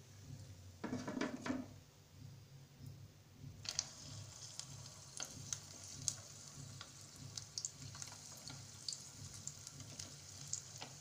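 Paneer-and-potato koftas frying in hot oil, with scattered sizzling crackles that set in about four seconds in. There is a brief clatter of utensils about a second in.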